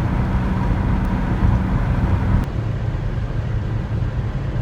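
VW bus's air-cooled engine and road noise at highway speed, heard from inside the cab as a steady low drone. About halfway through, the note drops and the hiss softens suddenly.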